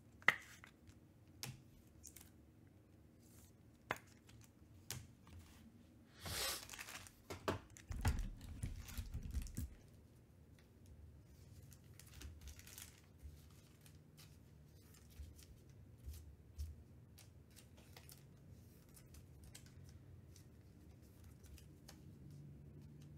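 Faint handling of trading cards and plastic card sleeves: scattered light clicks and soft plastic rustling as cards are slid into sleeves. There is a brief swish about six seconds in and a few low bumps around eight to ten seconds.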